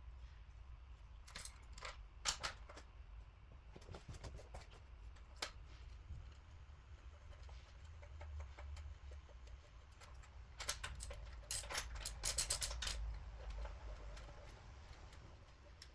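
Metal tools and bolts clinking and clicking against each other and the engine, with scattered taps and a quick run of clicks about two-thirds of the way in, over a faint low hum.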